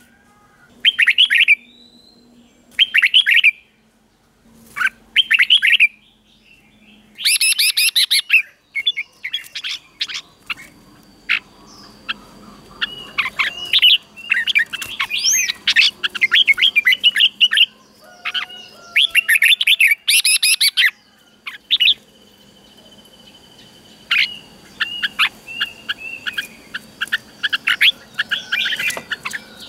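Red-whiskered bulbuls singing: short, loud chirping phrases about every two seconds at first, then denser, overlapping chirps and whistles from about nine seconds in.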